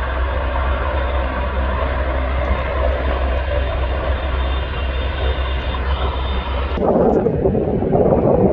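AgustaWestland Merlin 101 helicopter running on the ground, its three turbine engines giving a steady whine over a deep hum. About seven seconds in, this gives way abruptly to a louder, rough rushing noise.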